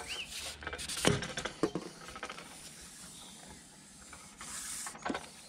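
Handling noise from fishing tackle: a few sharp clicks and knocks, the loudest about a second in, amid rustling, with a short hiss about four and a half seconds in.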